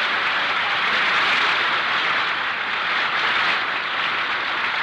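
A live radio studio audience applauding steadily after a comedy catchphrase.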